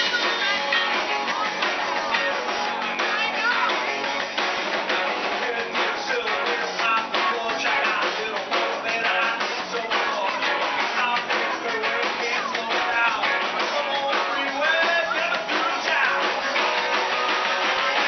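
Live rock band playing: electric guitars and drums, with a singer on a microphone. The sound is thin, with almost no bass.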